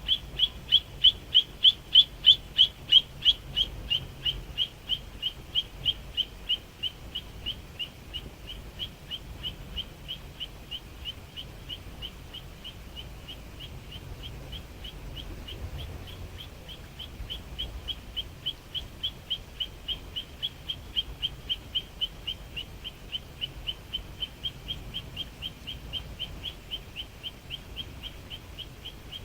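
A songbird repeating a single high chirp about three to four times a second without a break, loudest in the first few seconds, fading in the middle and growing stronger again toward the end.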